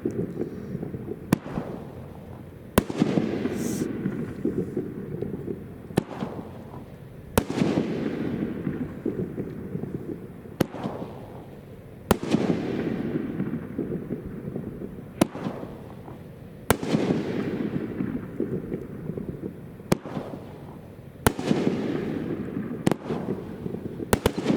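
Consumer firework cake of gold strobe shells firing in a steady sequence. Each shot is a sharp launch thump, then a bang about a second and a half later as the shell breaks, then a soft crackling of strobe stars that fades over a few seconds, about every four to five seconds. The strobe is real soft, without the hissing that normal strobe has.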